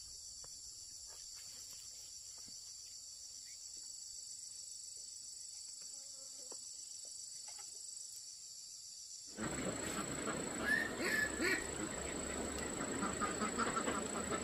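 Steady high-pitched insect chorus with an even pulse. About nine seconds in it cuts off abruptly and gives way to louder, jumbled noise.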